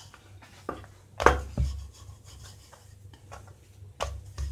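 Wooden rolling pin rolling out a disc of refined-flour dough on a wooden board: a soft rubbing, broken by a few sharp knocks of the pin against the board, the loudest a little over a second in.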